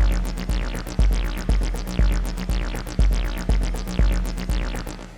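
Electronic jam on a Behringer RD8 drum machine with Behringer TD3 and Arturia Microfreak synths: a steady kick about twice a second under fast hi-hats and looping synth lines. The music fades out near the end.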